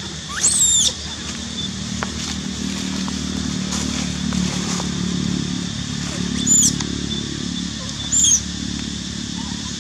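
Baby macaque squealing: three short, high-pitched cries, one just after the start and two near the end. Under them a low, steady engine hum builds and then fades.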